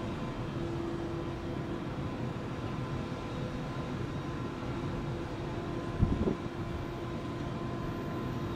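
Steady distant city noise from traffic, with a faint hum running under it. A single short knock comes about six seconds in.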